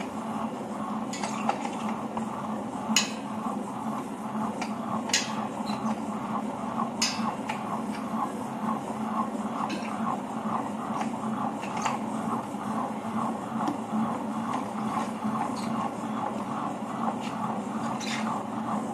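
Table-top wet grinder running with a steady hum and a regular churning rhythm as its drum turns against the stone rollers. Over it, urad dal batter is scraped out of the steel drum by hand, with occasional sharp clicks and scrapes against the drum and a steel bowl.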